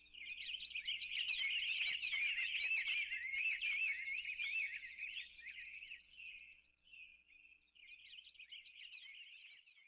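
Quick, high-pitched twittering chirps that warble up and down rapidly. They fade away over the first six seconds, and a few faint chirps return near the end.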